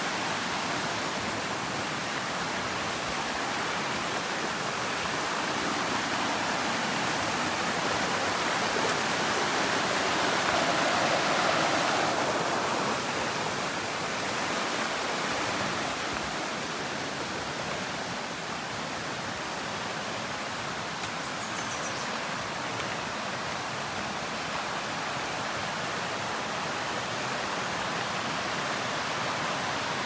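Mountain creek rushing over rocks, running high with snowmelt: a steady wash of flowing water that swells louder about ten seconds in, then settles back.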